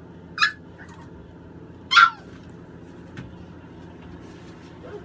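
American bully puppy giving two short high-pitched yelps, a small one about half a second in and a louder one about two seconds in.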